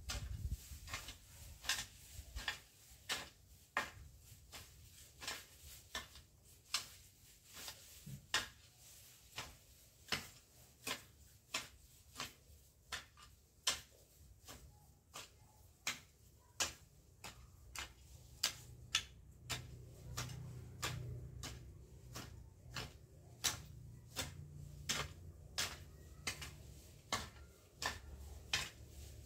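Sharp clicks or snaps at an uneven pace, roughly one or two a second, from a hand tool cutting through garden plants.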